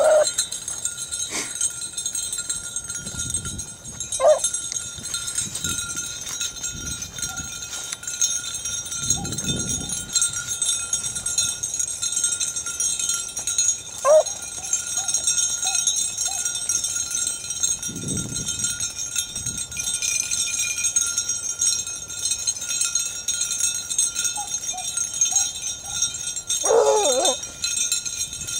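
Hunting dogs running a rabbit, giving a few short barks spread several seconds apart, with a longer bout of barking near the end.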